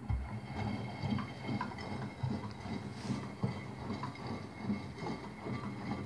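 Front-loading washing machine drum starting to tumble during a drum-cleaning wash: the motor hums and water sloshes and splashes inside the drum with small irregular knocks. The sound starts suddenly as the drum begins to turn.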